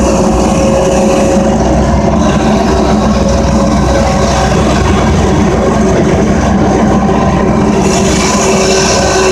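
Engine of a snow-plowing front loader running steadily and loud, heard from the cab, with a steady hum of several tones over a low rumble.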